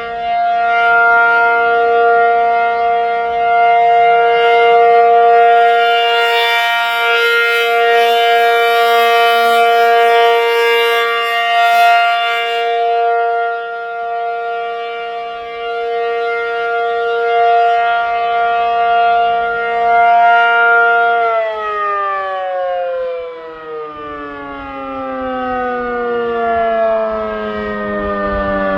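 ACA Penetrator-50 (P-50) tornado siren, a 50 hp three-phase motor driving an 8/12-port chopper, sounding its steady alert tone: a two-note chord held steady, swelling and fading in loudness as the siren head rotates. About 21 seconds in, it begins to wind down, the chord sliding steadily lower in pitch.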